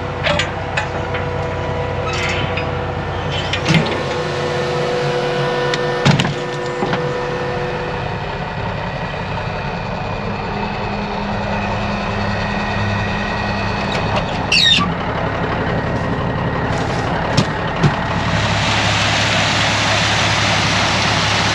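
Truck and tractor engines running steadily, with a few sharp metal clanks from hatch lids and latches on a seed cart. Near the end a steady rushing hiss joins in.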